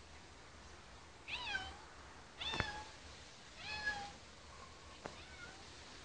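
Domestic cat meowing: three short meows about a second apart, then a fainter fourth one. A sharp click is heard during the second meow, with a smaller click later.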